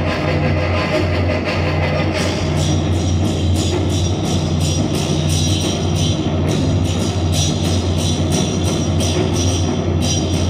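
Loud music with a fast, steady drum beat, its sharp, even strikes several to the second.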